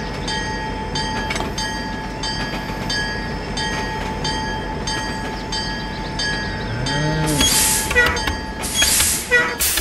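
Battery-powered toy steam train running on plastic track: a steady high whine with a regular clicking about twice a second. About seven seconds in, a short low tone rises and falls, followed by two short hisses.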